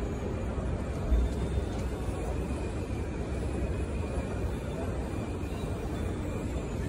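Steady low rumble and faint murmur of a large airport terminal hall, with one short low thump about a second in.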